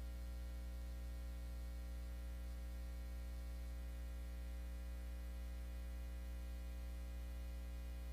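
Steady low electrical hum with a stack of even overtones and faint hiss, unchanging throughout, with no music or voice.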